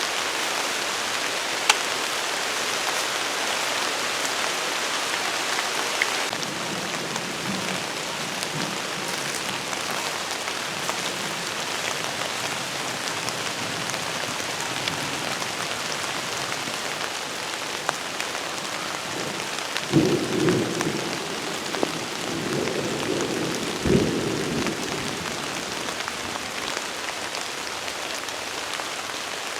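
Steady rain falling, with two low rumbles of thunder in the second half.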